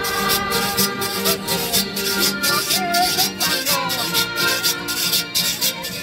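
Music with sustained melody notes over a steady beat of sharp percussion strokes, about three a second.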